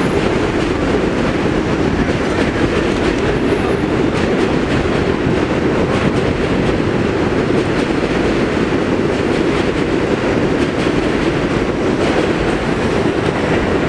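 Stainless-steel subway train pulling out of an elevated station and rolling away along the steel structure: a steady rumble of wheels on the rails.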